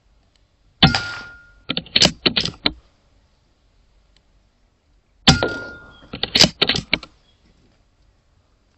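Two shots from a .22 pre-charged pneumatic air rifle, about four and a half seconds apart. Each shot has a short ringing tail and is followed by a rapid series of sharp mechanical clicks.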